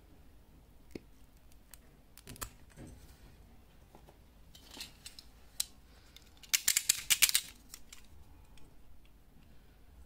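Hand tools snipping and clicking on a coaxial cable end as it is cut and stripped: scattered sharp clicks, then just past the middle a quick run of loud clicks lasting about a second.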